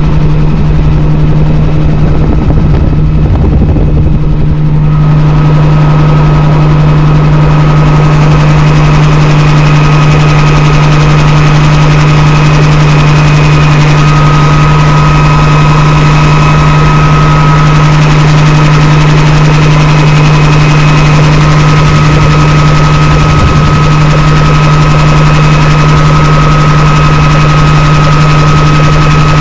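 Bell 47 helicopter in flight, heard from inside its bubble cabin: the engine and rotor make a loud, steady low hum with a thin, constant higher whine over it. The sound turns hissier about five seconds in.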